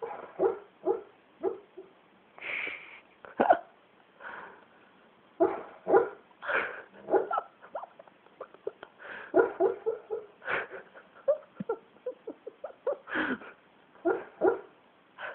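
A dog making vocal noises in its sleep: a string of short, irregular pitched sounds, some single and some in quick runs, with brief gaps between them.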